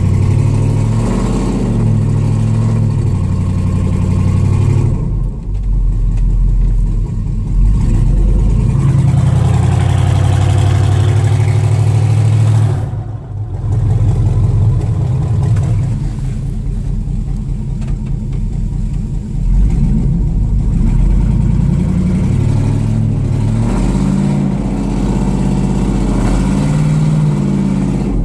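Chevy 2500 pickup's 6.0-litre V8 revving up and down under load, heard from inside the cab, as the truck is backed off a steep rocky hill it got stuck on. The engine note drops away briefly about halfway through.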